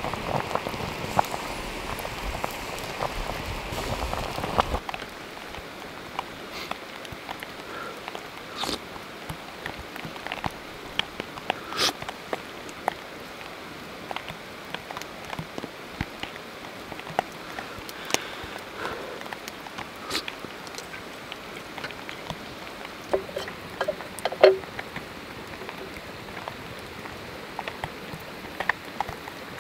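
Soft, steady pattering of heavy wet snowfall with scattered small ticks and drips. For the first few seconds a pot boils over a campfire, louder and fuller, before the sound cuts abruptly to the quieter snowfall. A few light knocks and clicks come through, the sharpest a little over three-quarters of the way in.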